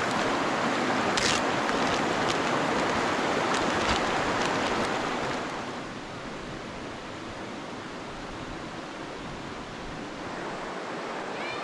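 Creek water rushing over rocks, a steady noise that drops to a quieter level about halfway through.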